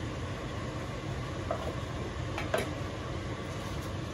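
Meat tipped from a bowl into a steel stock pot and scraped out with a wooden spoon, with two light knocks, over a steady kitchen hiss.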